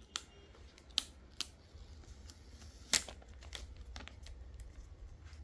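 Hands opening and handling the Hollyland Lark M2 box: scattered sharp clicks and taps, the loudest about three seconds in.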